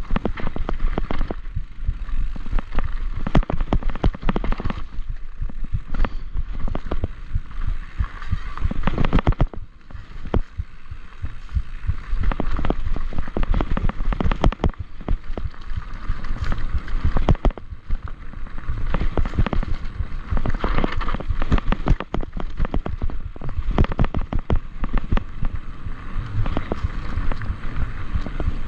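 Mountain bike riding fast down a rocky dirt trail: the tyres crunch over stones while the bike rattles and knocks without pause over the bumps, over a steady low rumble.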